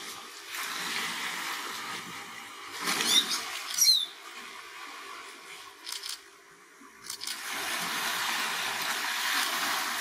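Water rushing over rocks as a steady hiss that dies away for about a second past the middle, then swells back. About three and four seconds in, a bird gives two short, squeaky calls that slide in pitch.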